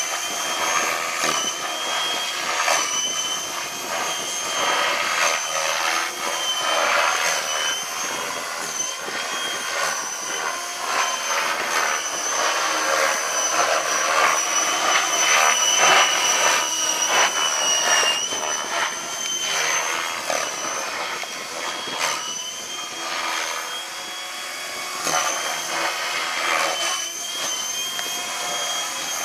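Strong wind buffeting the microphone in gusts that rise and ease every few seconds, over a steady high-pitched whine.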